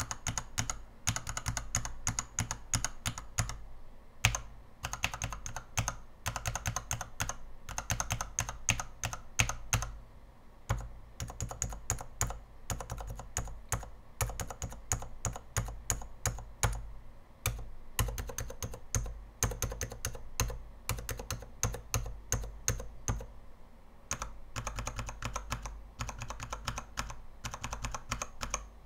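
Mechanical keyboard switches on a 72-switch tester with an acrylic base and XDA-profile keycaps being pressed one after another, in runs of rapid clacks broken by short pauses.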